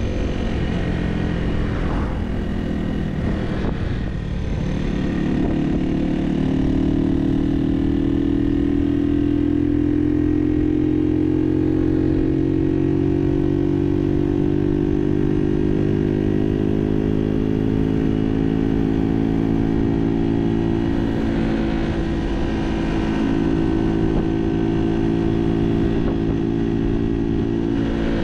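Barton Volcano 50cc moped engine under way, geared with a 15-tooth front sprocket instead of the stock 12-tooth. The engine note dips about four seconds in, climbs steadily for several seconds as it pulls, then holds nearly steady.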